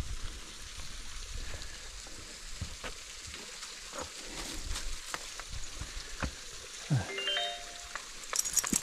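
Footsteps crunching and crackling on dry leaves and stones of a woodland trail, over a faint steady rush from a small waterfall. A brief call sounds about seven seconds in.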